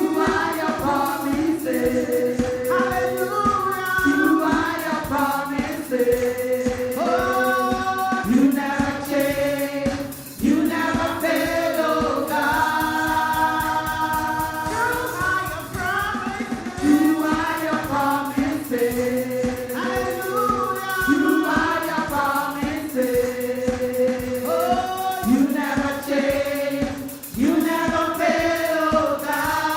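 Church worship singing: a group of voices singing a gospel praise song in long held notes over band accompaniment with a steady beat.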